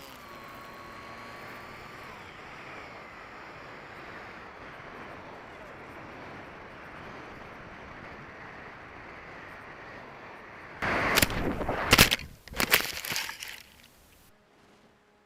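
Air rushing over a small RC plane's onboard camera, with the electric motor's whine dropping away about two seconds in. About eleven seconds in, a burst of loud knocks and scrapes lasting about three seconds as the plane hits the ground, then the noise stops.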